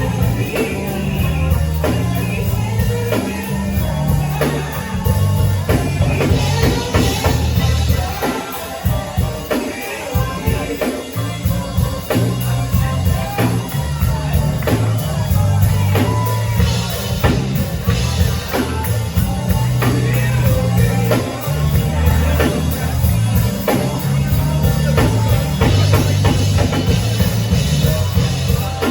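Live band playing a song: a bass line, a drum kit keeping a steady beat, and a singer.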